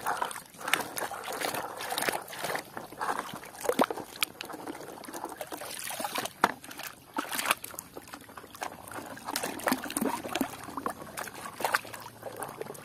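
Water trickling and splashing, with small irregular knocks and clicks, as a muddy toy truck is washed.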